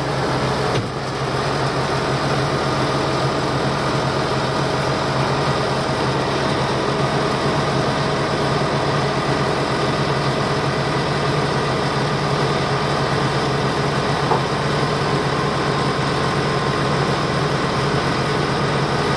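Tractor engine running steadily at low speed, an even drone while it slowly pulls a baler off a trailer.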